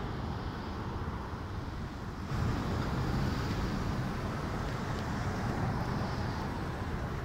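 Jet airliner on landing approach passing low overhead: steady jet engine noise that grows louder about two seconds in.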